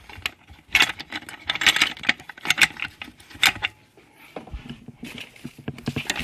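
Metal parts of a Honda Prelude manual transmission's shift mechanism clinking and clicking as they are handled and fitted into the aluminium case. Sharp clacks come about once a second over the first four seconds, then give way to softer, duller knocks.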